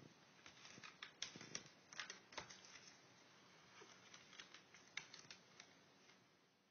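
Faint, irregular clicks and taps, a few close together at a time, over quiet room tone.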